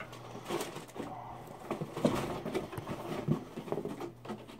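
Cardboard packaging rustling, with scattered light knocks and clicks, as small product boxes are handled and lifted out of a shipping box.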